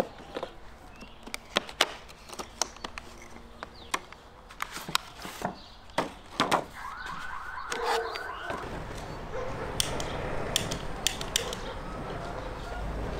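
Sharp clicks and taps of a knife box and its plastic case being opened and handled. About seven seconds in comes a brief run of high rising squeals, then a steady rushing noise.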